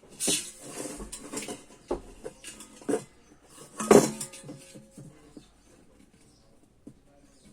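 Metal parts of an electric kettle clattering and scraping as the steel cover is fitted into its rubber gasket, a run of clicks and knocks with the sharpest knock about four seconds in.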